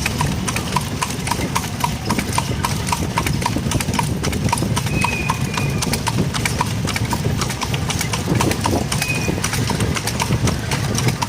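A horse's hooves clip-clopping steadily on a hard road while it pulls a cart, over the low rumble of the cart's wheels, with a light regular tick about two to three times a second in the first few seconds.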